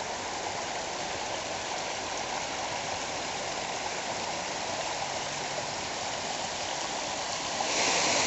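Bush creek rushing over rocks, a steady rush of water. It grows louder near the end as a small waterfall comes close.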